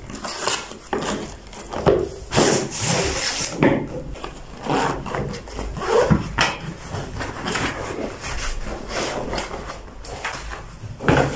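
A portable tripod being unboxed: cardboard box flaps and packaging scraping and rustling as the tripod is slid out in its fabric drawstring bag, then cloth rubbing as it is pulled from the bag. The handling comes in irregular scrapes and rubs, with a longer scrape about two to three seconds in.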